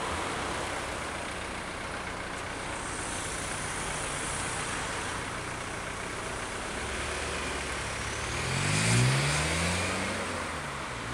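Steady city street traffic noise, with a car driving close past about nine seconds in, its engine note climbing and then dropping as it goes by.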